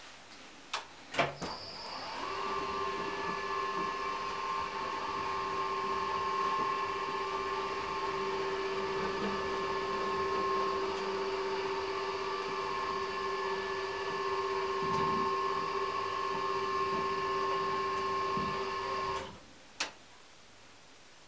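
Electric drive of a motorised ceiling bed lowering the bed: a steady mechanical whine that holds a few even tones for about seventeen seconds, then cuts off as the bed comes to rest. A couple of sharp clicks come just before it starts, and one more shortly after it stops.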